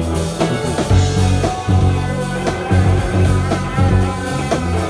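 Live rock band playing with electric bass, electric guitar, synthesizer and drums, over a steady beat.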